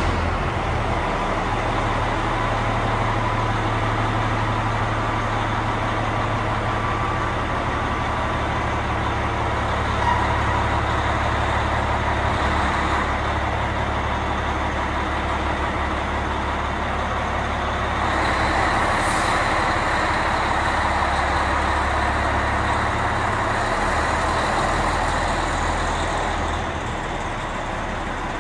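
Diesel engine of an Oshkosh airport deice truck running steadily; the note changes in the last few seconds as the truck pulls forward.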